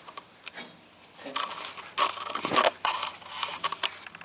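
Engine parts being handled and fitted by hand during a timing-chain follower install: irregular scraping and small clicks, loudest about two to three seconds in.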